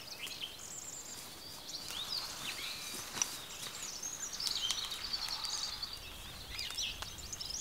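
Woodland songbirds chirping and trilling, several overlapping high calls. A single sharp click stands out about three seconds in.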